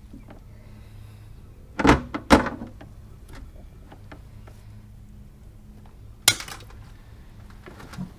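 Knocks and clatter of a landing net and a catfish being handled against an aluminum boat: two loud knocks about two seconds in, a sharp one about six seconds in, and small clicks between them over a low steady hum.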